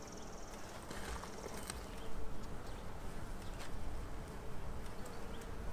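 Russian honey bees buzzing in a steady hum around a comb frame lifted out of the hive, over a low rumble, with a few faint clicks.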